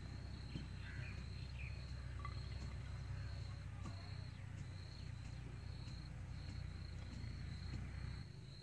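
Insects chirping in a steady high pulse, about two chirps a second, over a low steady rumble that drops away near the end.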